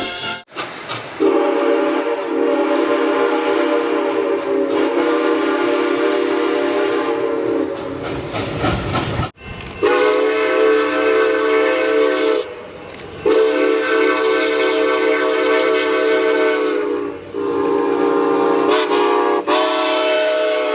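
Train whistle sounding a chord of several tones in four long held blasts with short breaks between them; the first blast is the longest.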